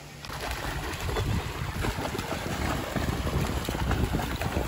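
Wind blowing across the microphone: a continuous low, gusting rush that cuts in just after the start.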